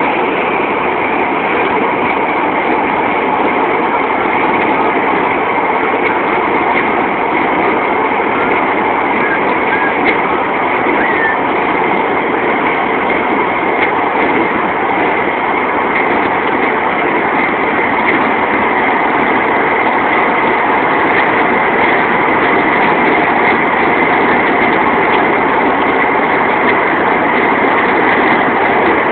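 Steady road and engine noise heard from inside a car's cabin at motorway speed, rising slightly near the end as it draws alongside a truck.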